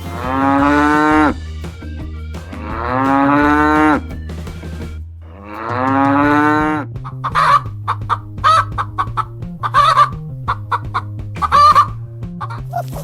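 A cow mooing three times in long calls, then chickens clucking in quick short bursts.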